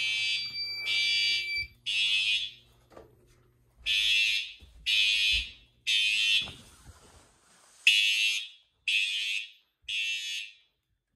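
Fire alarm horns sounding a harsh buzzing tone in the temporal-three evacuation pattern: three pulses about a second apart, then a pause, repeated. This is the system in alarm after the pull station was pulled. A steady high beep sounds under the first two pulses.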